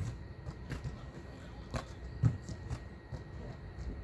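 Football-pitch sound during play: scattered knocks and dull thuds, the loudest right at the start and again about two seconds in, over a low steady rumble.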